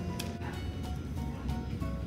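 Background music with held notes over a light, regular beat.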